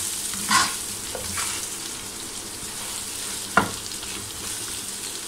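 Raw mango slices frying in oil in a nonstick frying pan with a steady sizzle while a spatula stirs them, scraping across the pan a couple of times and giving one sharp knock about three and a half seconds in.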